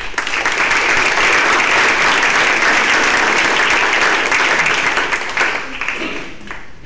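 Audience applauding, a dense steady clapping that thins and dies away near the end.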